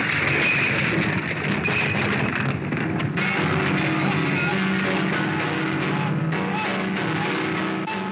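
Music, with a rough, rushing noise mixed in over the first three seconds; after that, held instrument notes carry on.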